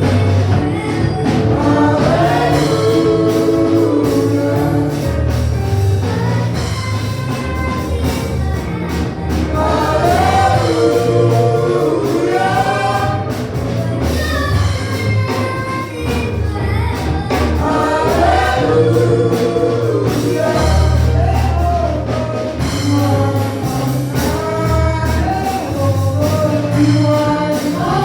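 Gospel choir singing with band accompaniment and a strong bass line.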